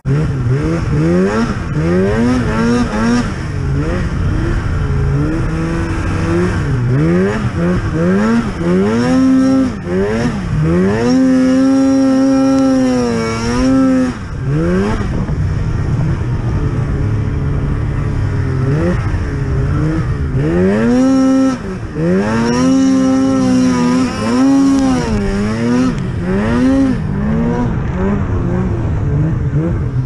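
Polaris Axys snowmobile engine revving up and down over and over as the sled works through deep powder, with two stretches of a couple of seconds held at high revs before dropping off.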